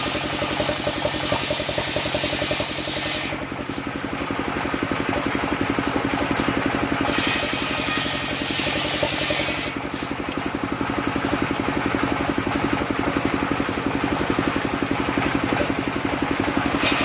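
The engine of a mobile circular-saw sawmill running steadily with a rapid, even pulse. A higher hiss rises over it for a few seconds around the middle.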